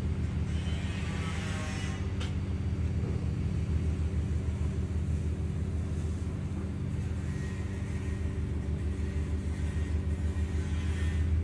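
A steady, low machine hum with a fast pulsing beat.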